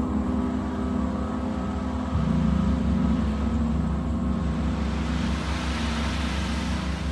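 Large hanging gongs sounding together in a sustained, dense low drone of many overlapping tones. A new low tone joins about two seconds in, and a brighter shimmering hiss swells up from about five seconds in.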